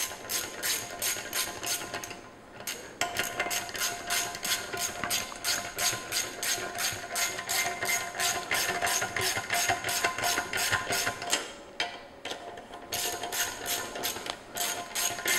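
Background music with a fast, steady percussive beat of about five strokes a second, dropping out briefly twice.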